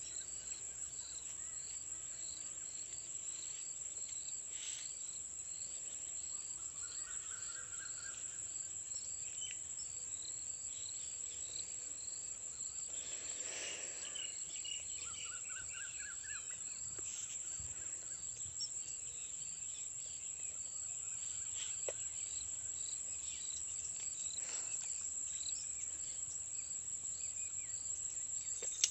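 A continuous high-pitched insect trill over a weedy pond edge, with a second, lower chirp repeating about twice a second. Twice a short run of quick lower notes breaks in.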